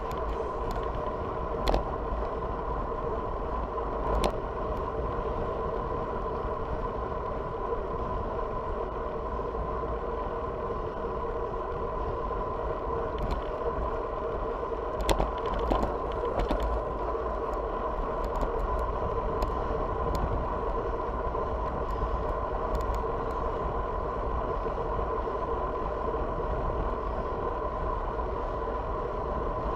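Road bike riding on an asphalt path, heard from a handlebar-mounted camera: a low wind rumble under a steady hum, with a few sharp clicks and knocks.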